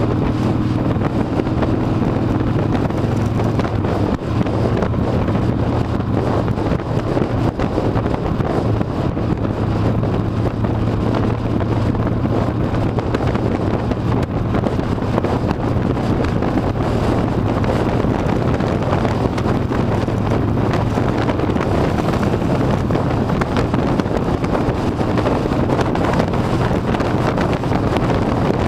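Harley-Davidson V-twin motorcycle engine running at a steady cruise, a low even drone, with heavy wind rushing over the microphone.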